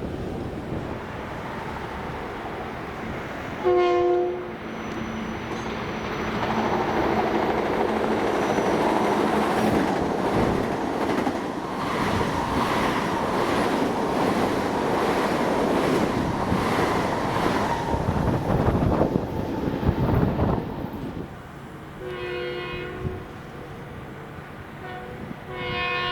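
Long Island Rail Road train sounding a short horn blast, a chord of several tones, then rumbling past for about fifteen seconds with a regular clicking of wheels over the rail joints. Two fainter horn blasts follow near the end.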